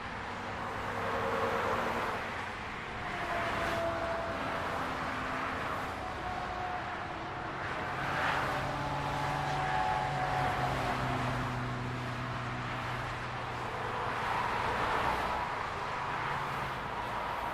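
Steady highway traffic: a continuous wash of tyre and engine noise, swelling every few seconds as vehicles pass, with engine drone underneath.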